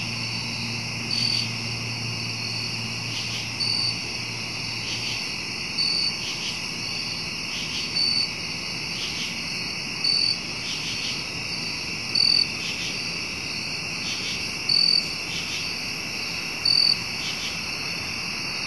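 Chorus of night-singing insects: a steady high trill with a louder short chirp repeating about every two seconds. A low steady hum runs underneath and stops about five seconds in.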